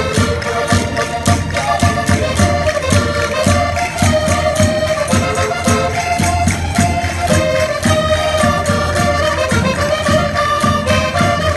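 Live Portuguese folk music from a Minho folk group, amplified through stage loudspeakers: an accordion-led melody over a steady, quick percussion beat.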